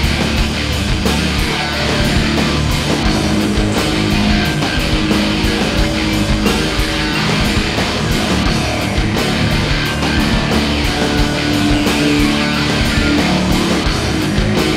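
Background rock music with distorted electric guitar and a steady drum beat.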